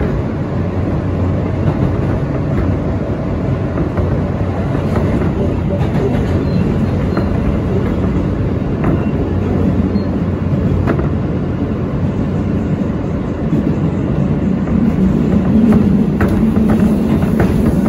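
R160A-2 subway train running along the track: a steady rumble of wheels on rail with scattered clicks from rail joints. The sound grows louder about fourteen seconds in, with a quicker run of clicks near the end.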